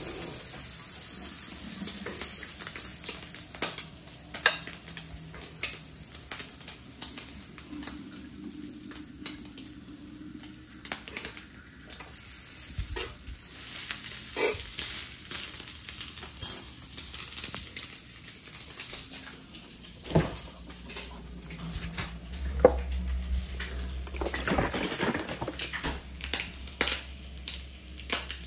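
Turkey bacon sizzling on an electric griddle, loudest in the first few seconds, with frequent clicks and taps of a utensil against the griddle and plate.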